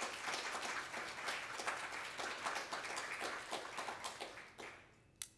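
Audience applauding, a dense patter of many hands clapping that dies away about four and a half seconds in, with one sharp click just before the end.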